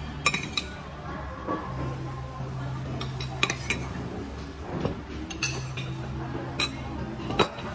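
A metal fork clinking and scraping against ceramic serving dishes and a plate, in scattered sharp taps, over a steady low hum.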